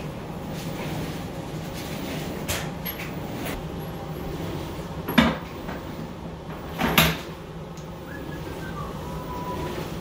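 Knocks and clunks of a faucet supply hose and its fittings handled against a plastic utility sink tub and faucet deck, with two louder clunks about two seconds apart near the middle.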